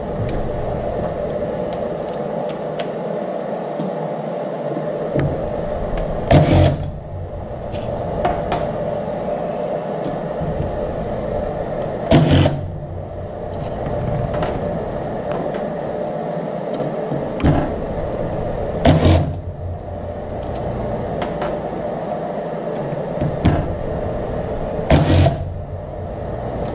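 Cordless impact driver run in four short bursts, about six seconds apart, backing out the bolts of a Hemi cam phaser's retention plate. A steady background hum runs underneath, with light clicks between the bursts.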